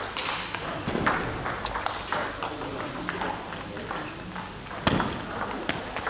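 Table tennis ball clicking sharply off the bats and table during serve and rally, several separate strikes with the loudest about five seconds in, ringing briefly in a large hall.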